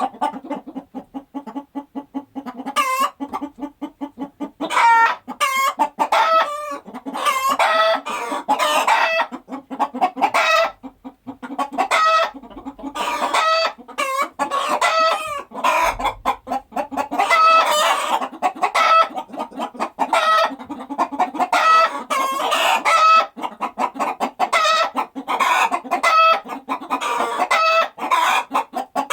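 A flock of chickens clucking, with many short calls overlapping without pause.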